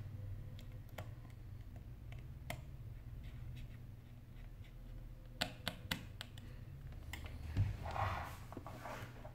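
Light clicks and taps of small tools and metal parts as hands work inside an opened iPhone 8 Plus. About halfway through comes a quick run of sharper clicks, and near the end a soft thump and rustle of handling, all over a steady low hum.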